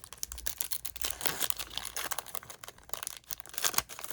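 A trading card pack's wrapper being torn open and crinkled, with the cards being handled: a dense run of crackles and rips, loudest about a second and a half in and again near the end.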